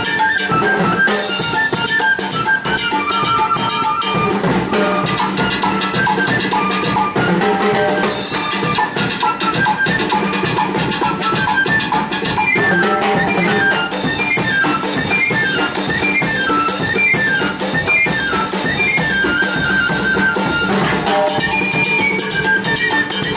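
A small folk band plays live. A flute carries a quick stepping melody over a painted bass drum and a pair of timbales with a jam block, all beaten in a fast, steady rhythm.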